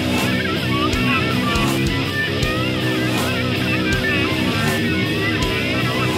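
Background rock music with electric guitar over a steady drum beat.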